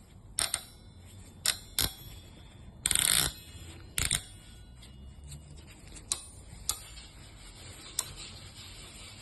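Sharp metallic clinks of hand tools on metal, about eight at uneven intervals, with one longer scrape about three seconds in, as grips are worked on the snapped bolt stubs in a cylinder head.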